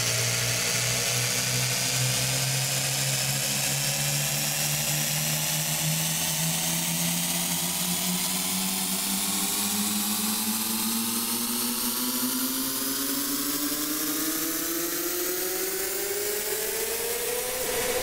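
Cinematic riser sound effect: a thick, many-toned sound whose pitch climbs steadily for about eighteen seconds, slowly at first and faster toward the end, rising about two octaves. It stops at the peak and fades away.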